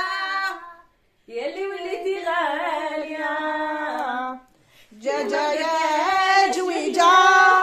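A woman's voice singing slowly in long held notes, breaking off briefly about a second in and again a little past the middle.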